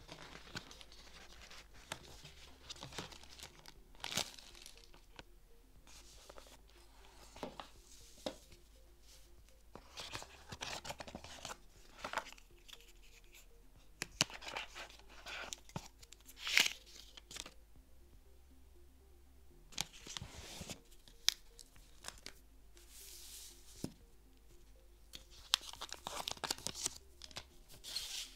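Paper and cardboard packaging of a smartphone box being handled: rustling and sliding of paper sleeves and card inserts, with scattered light taps and clicks, and crinkling of a plastic sheet near the end.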